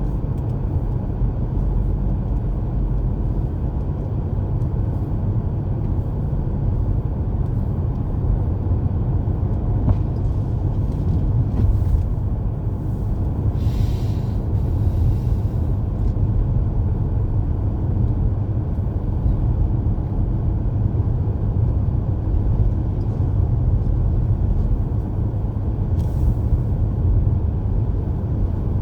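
Steady low rumble of a car's engine and tyres heard from inside the cabin while driving on a snowy road. A brief hiss comes about halfway through and a fainter one near the end.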